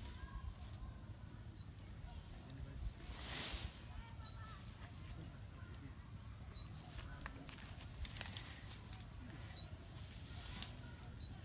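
Steady, high-pitched insect drone with a short high chirp every two to three seconds and a low rumble beneath; a brief rustle about three seconds in.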